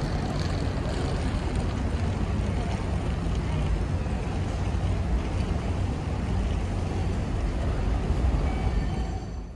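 Steady outdoor rumble of traffic mixed with wind buffeting the microphone. It cuts off suddenly at the end.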